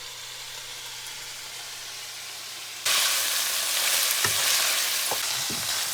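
Ground beef sizzling in a frying pan, with the knocks and scrapes of it being stirred. The frying comes in suddenly about halfway through, after a quieter steady hiss with a low hum.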